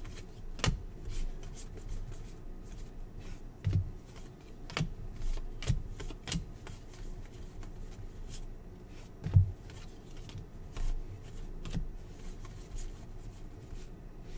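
NBA Hoops trading cards being flipped through by hand, each slid off the front of the stack in turn: a run of light, irregular card-on-card clicks and slides, with a few louder taps.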